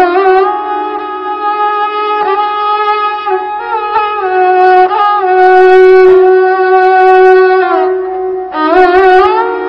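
Instrumental music: a bowed string instrument playing a slow melody of long-held notes that slide up and down between pitches.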